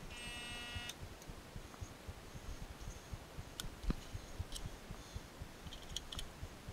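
Light clicks and taps of hands handling small metal parts at a stopped wood lathe, scattered through the second half. They follow a short ringing tone just under a second long at the start.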